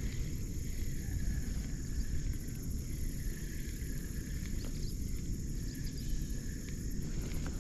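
Outdoor lake ambience picked up by an action camera on a kayak: a steady low rumble of wind and water on the microphone, with a faint steady high-pitched hum over it and a couple of faint ticks.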